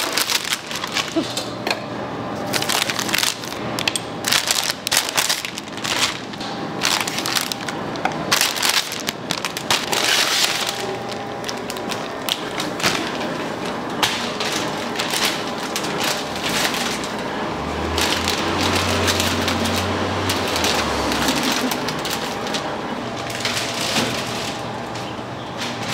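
Kitchen work sounds: a dense run of sharp cracks, clicks and knocks, with a low steady hum for about three seconds a little past the middle.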